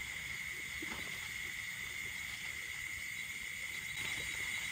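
Night insect chorus: a steady, high-pitched, continuous trill.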